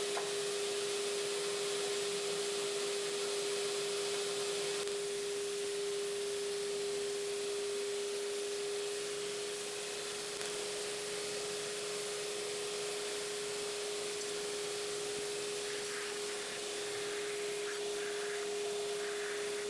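Belt grinder running with a steady hum and hiss. Near the end there is faint grinding of hardened steel against the belt.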